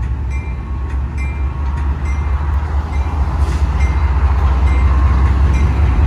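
Two GE B39-8E diesel-electric locomotives, each with a twelve-cylinder GE 7FDL engine, running under load as they move slowly across a grade crossing during switching. The deep engine drone grows louder as the units come closer. Over it a grade-crossing bell dings steadily at an even pace.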